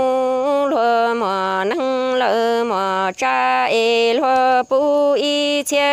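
A voice singing Hmong kwv txhiaj (sung poetry) in one long chanted phrase. The notes are held and wavering, each sliding down at its end, with a few very short breaks for breath.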